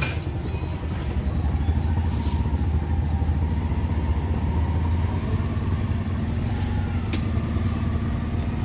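Steady low rumble of an engine running, with a few faint clicks.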